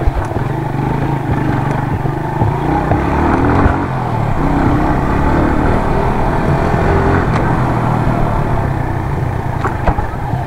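Suzuki GS150 motorcycle's single-cylinder four-stroke engine running steadily while the bike is ridden slowly.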